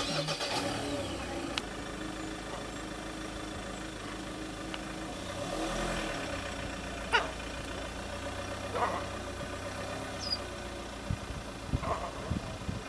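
Vehicle engine idling steadily, with a few short sharp sounds about seven, nine and twelve seconds in.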